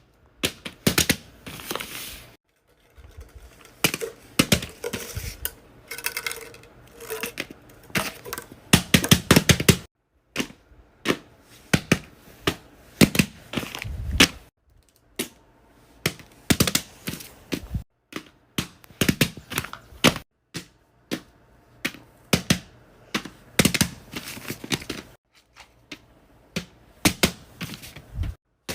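Hands making and handling small DIY craft toys: irregular sharp clicks, taps and crackles in clusters, with dense crinkling and crackling about eight to nine seconds in.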